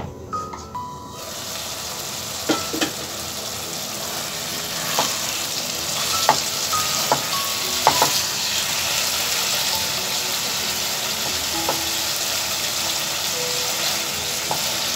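Pumpkin and masala curry sizzling in a metal pan as a wooden spatula stirs it, the water cooked down to a thick gravy, with a few light knocks and clinks against the pan.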